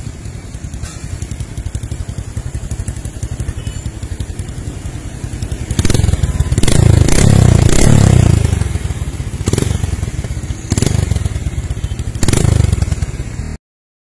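Neptune 125 motorcycle engine running through a Lits-Cel aftermarket muffler, idling with a steady pulse and then revved several times. It is loudest from about six to nine seconds in, and there are a few sharp cracks among the revs.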